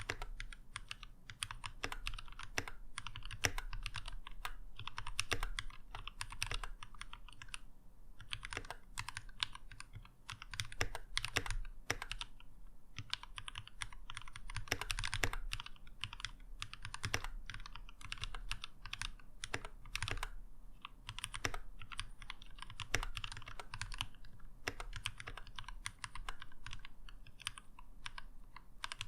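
Keychron K6 mechanical keyboard being typed on fast and continuously, a dense run of key clacks with a few brief pauses.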